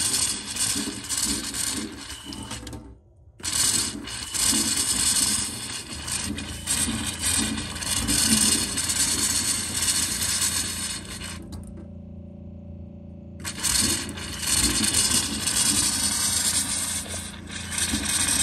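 Water and air spluttering and hissing out of a camper van's hot tap as air is purged from a newly fitted calorifier hot-water system, with the 12 V pressure pump humming underneath. The water noise cuts out briefly about three seconds in and again for about two seconds near the middle, leaving only the pump's hum.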